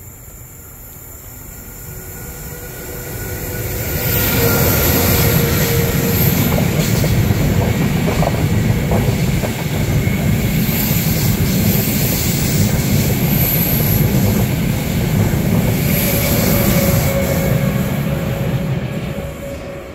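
Intercity passenger train hauled by E414 electric locomotives passing at speed. The rumble of its wheels on the rails builds over the first few seconds, holds loud, then fades near the end, with short bursts of high-pitched wheel squeal along the way.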